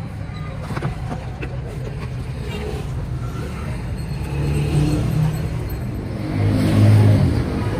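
Low motor-vehicle engine rumble, steady at first, swelling twice, the second and louder time near the end.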